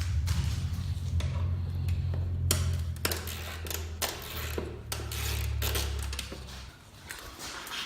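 A steady low hum that stops near the end, under a string of sharp clicks and knocks from hands and tools working on the mower.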